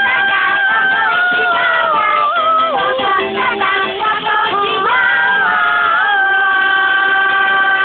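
Cartoon song music: a melody that slides down in pitch about halfway through and glides back up, then settles into a long held chord.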